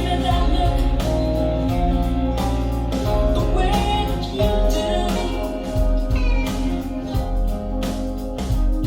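A song played back through SVS Prime Tower loudspeakers: a singing voice over drum hits and deep bass.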